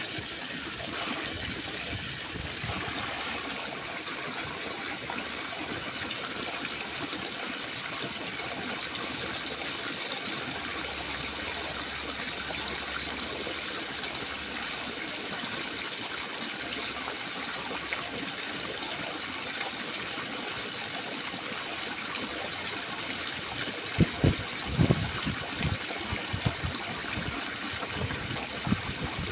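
Steady rush of running water, with several low thumps in the last few seconds.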